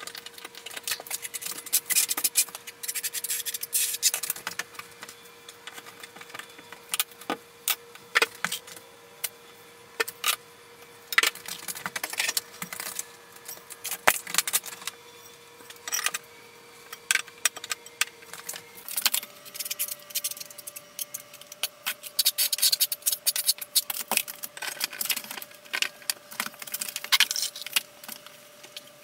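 Irregular clicks, taps and scrapes of hard tile being handled and set by hand: marble wall tiles knocking and sliding against each other and the wall. A faint steady tone runs underneath and steps up a little in pitch about two-thirds of the way through.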